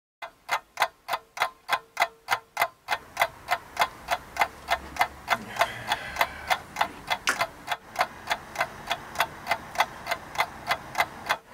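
Clock ticking steadily, about three ticks a second. About three seconds in, a faint background hiss comes in under the ticks.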